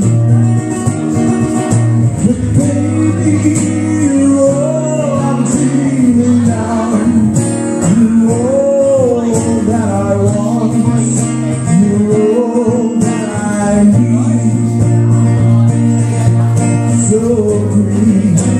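A live blues band playing an instrumental passage of a blues song: a guitar lead with bending notes over sustained low notes and cymbals.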